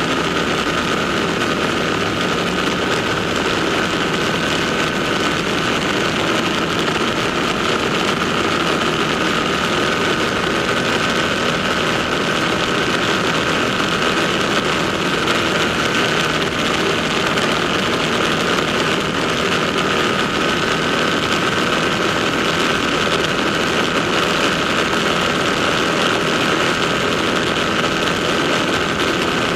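Motorcycle engine noise running steadily, holding one even pitch without revving or passing.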